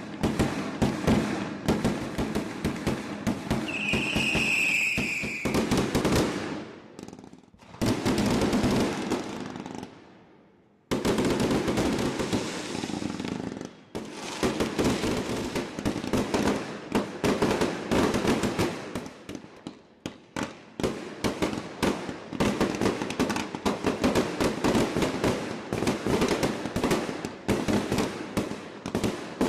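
Fireworks going off: a dense run of crackling and banging bursts, with a short high whistle about four seconds in. The sound breaks off and starts again abruptly twice.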